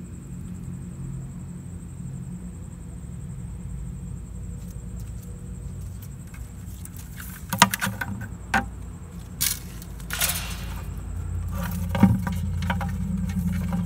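A steady low rumble, then several sharp clicks and knocks and a short rustle as a plastic bucket and grabber tongs are handled, the scorpion on its grass stem being dropped into the bucket.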